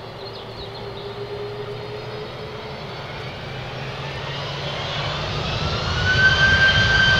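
Jet airliner engines spooling up: a whine rising in pitch for about three seconds and then holding steady, with a low rumble that grows louder.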